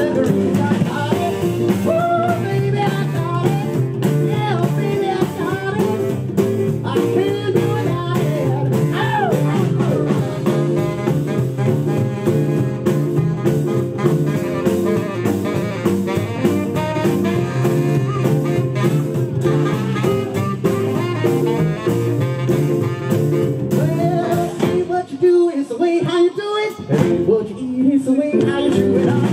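Rock and roll band playing live: steady drums and bass under bending lead lines. The bottom end drops out briefly near the end before the full band comes back in.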